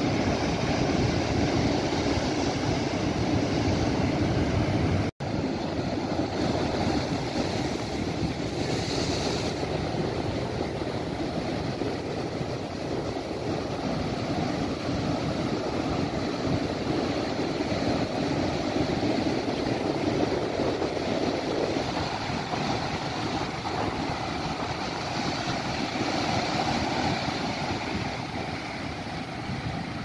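Heavy ocean surf breaking and foaming white water rushing in, a continuous, loud rushing noise. It cuts out for an instant about five seconds in.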